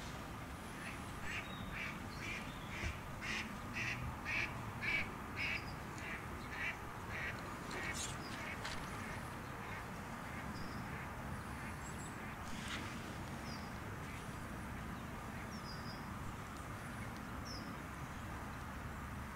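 A duck quacking in a long run of about fourteen quacks, about two a second, growing louder and then fading. The quacking stops about eight seconds in, and a few faint bird chirps follow.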